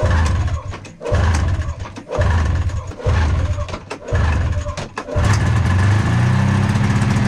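Snowmobile engine being cranked over in about five short attempts of roughly a second each, then one longer crank that settles into a steady hum. It is not starting, after sitting unused for a year.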